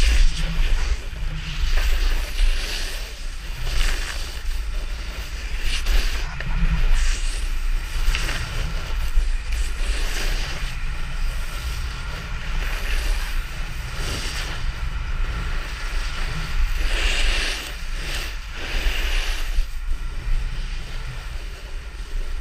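Wind buffeting an action camera's microphone over a low rumble, as a snowboard carves through powder snow; the board's edge hisses through the snow in repeated surges with each turn.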